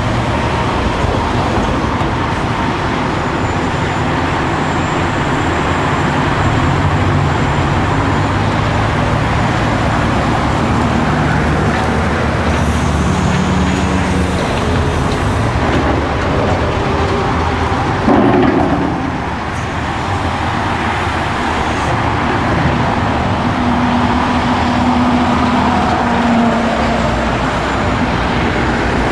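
Hitachi Zaxis 500LC excavator's diesel engine running steadily under load as it digs and swings, with the dump truck's diesel idling alongside. A little past halfway there is one sudden loud thump.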